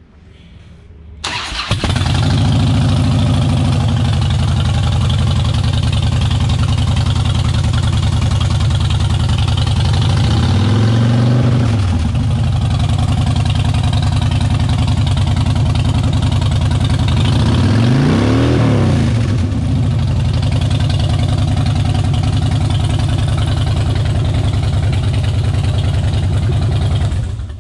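2007 Harley-Davidson Dyna Low Rider's Twin Cam 96 V-twin, on an aftermarket Stage 1 exhaust and intake, starts after a brief crank about a second in and idles steadily. It is revved twice, about ten and about eighteen seconds in, each rev rising and falling back to idle, and cuts off suddenly near the end.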